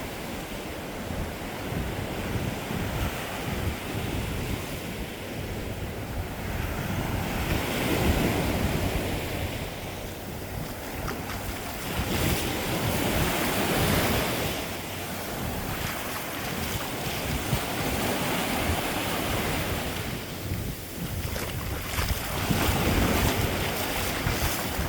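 Ocean surf breaking and washing up a beach, rising in several louder swells, with wind rumbling on the microphone.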